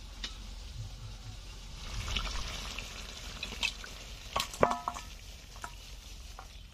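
Metal pan tongs clinking on a steel cooking pan of hot curry as it is gripped and lifted off a clay stove, over a soft sizzle. Several sharp metallic clinks about four and a half seconds in, one ringing briefly.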